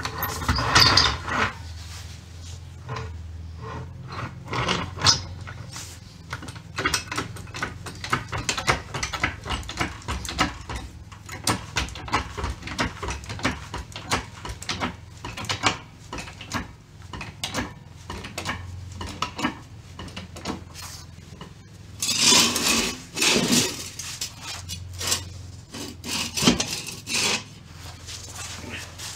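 Steel floor jack on a concrete floor being worked to lift a car: a long run of creaks, clicks and knocks as its handle is pumped, with louder scraping near the end.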